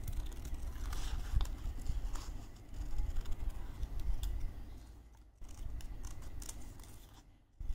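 Scissors snipping through paper: a string of small, irregular clicks and rustles over a low handling rumble.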